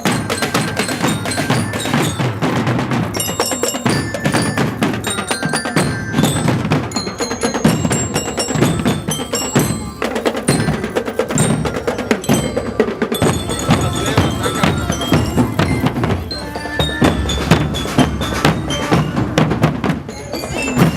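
Drum band music: a bright mallet-bell melody, like a marching bell lyra or glockenspiel, played over steady drum strokes.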